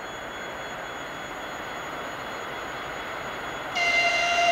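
TEP70 diesel passenger locomotive approaching, its V16 diesel engine and wheels a steady rumble, then a short high-pitched horn blast near the end, lasting under a second.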